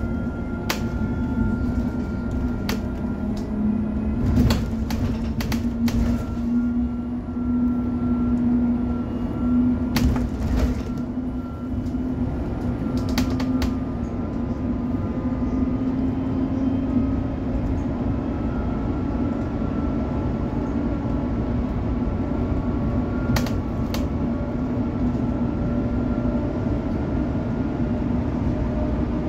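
MAN city bus heard from inside the passenger cabin while under way: a steady drive hum with a low road rumble. Sharp rattles and knocks from the cabin come every few seconds in the first half and once more about three-quarters through.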